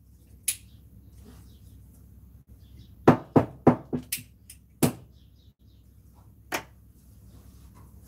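A series of sharp knocks and clicks: one about half a second in, a quick irregular run of about six through the middle, and one more later.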